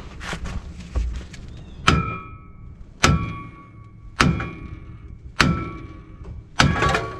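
Five hard hammer blows on a steel steering knuckle (spindle), evenly spaced about a second apart, each with a short metallic ring, knocking the old spindle loose from the suspension.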